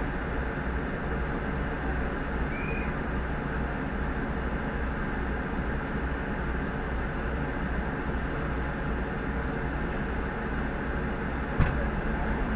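A parked fire engine running steadily, heard from inside the cab: a low, even throb under a steady hiss. There is one sharp knock about a second before the end.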